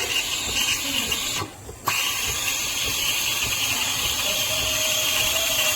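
Espresso machine running with a steady hiss, which drops out briefly about one and a half seconds in.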